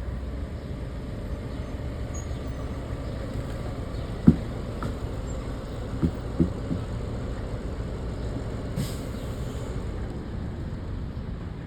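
Steady low rumble of a vehicle on the move, with a sharp knock about four seconds in and a few lighter knocks around six seconds in.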